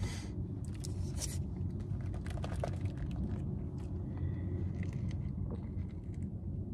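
Steady low rumble in a car cabin, with a few faint clicks and rustles as a plastic drink cup is handled and sipped from.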